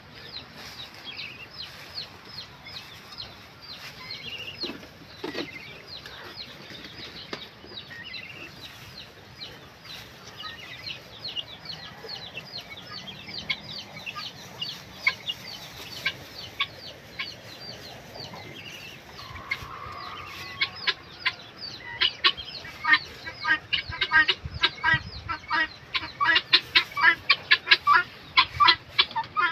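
Helmeted guinea fowl calling: a long run of short repeated chattering notes, several a second, that grows louder and denser over the last ten seconds.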